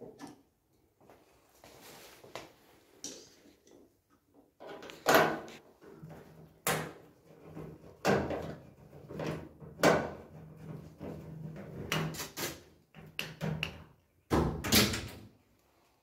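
Irregular knocks, clicks and scrapes of a Bosch front-loader's plastic control panel and top cover being handled and a screwdriver working at the cabinet screws.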